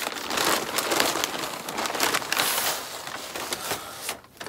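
Brown kraft paper wrapping crinkling and rustling as it is pulled open by hand. The crackling is dense and loud, then dies away about four seconds in.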